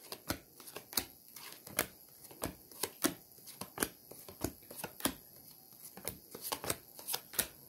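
Tarot cards being handled and shuffled on a table: a quiet run of irregular soft clicks and taps.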